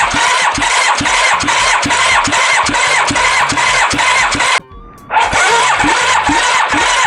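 Electric starter motor cranking a Yamaha FZR1000 inline-four engine for a compression test: a whirring whine with a regular pulse of about three to four compression strokes a second. The cranking stops briefly about four and a half seconds in, then starts again.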